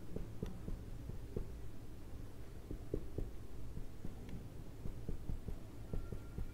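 Marker pen writing capital letters on a whiteboard: a string of soft, irregular low taps as the strokes land, over a steady low hum.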